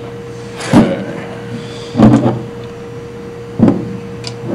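Three separate knocks, more than a second apart, as a Sherline lathe bed assembly is handled and bumped down on a wooden workbench.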